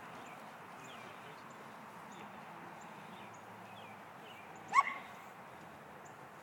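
A dog gives one short, sharp bark about three-quarters of the way through, over a steady quiet background.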